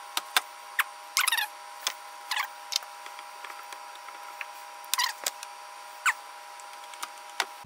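Small clicks, taps and a few short scrapes from plastic and metal parts being handled as a power window motor's replacement gear is tried in its housing, with a pick in hand. A faint steady hum runs underneath.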